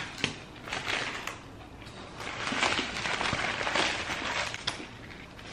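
Close-up eating sounds: crunchy chewing of Taco Bell food and the rustle of paper food wrappers, a dense crackling that is loudest in the middle.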